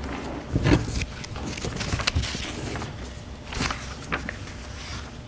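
Papers being shuffled and handled on a table, with a few bumps; the loudest, a dull knock, comes just under a second in.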